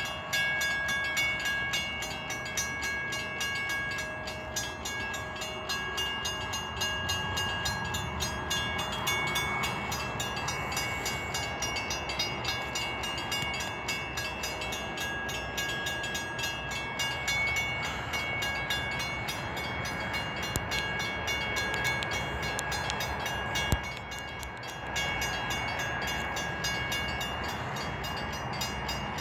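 Connecticut Southern freight train rolling past: steady noise of steel wheels on rail, with high-pitched squealing tones that come and go, and one sharp click about 24 seconds in.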